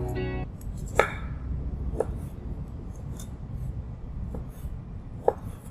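Knife slicing boiled pig ear on a cutting board, each cut ending in a sharp knock on the board, about once a second.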